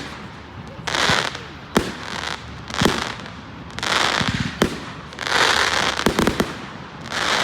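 Fireworks going off: sharp bangs mixed with hissing, crackling bursts, about one every second.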